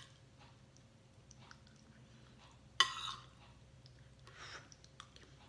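Spoon and fork scraping and clinking against a plate while scooping rice, with one sharp clink near the middle and a few small ticks, and quiet chewing.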